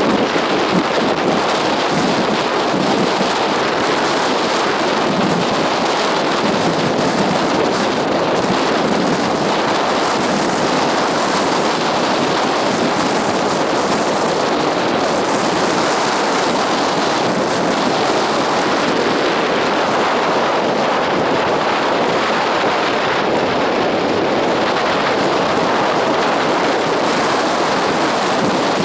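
Strong mountain wind blowing over the microphone: a loud, steady rushing that keeps up without a break.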